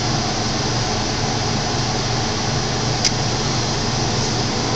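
Steady background noise with a low hum under it, and one short sharp tick about three seconds in.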